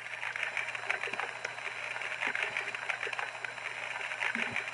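Steady hissing with fine crackling from a Lionel Hot Box model freight car's smoke effect as smoke pours from its overheated-bearing journal box.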